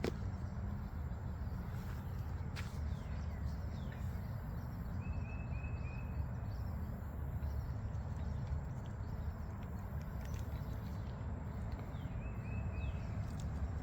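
Steady low outdoor rumble with a few faint clicks. A bird twice gives a quick run of about four short high chirps, about five seconds in and again near the end.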